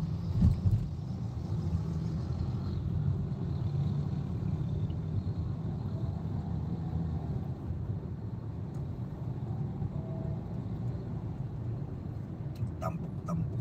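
Steady low rumble of road and engine noise heard from inside a moving car's cabin, with a brief thump about half a second in.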